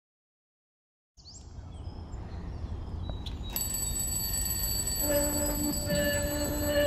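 A produced sound-design swell that grows steadily louder, with clock and alarm-like tones: a short high chirp, a single click, then a high steady ringing tone, and a held low pitched tone joining a few seconds in.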